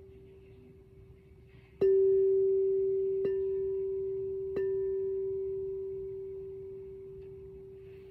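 Frosted crystal singing bowl ringing with one steady pure tone, struck with a mallet three times about a second and a half apart. Each strike brings the ring up loud, and it slowly dies away.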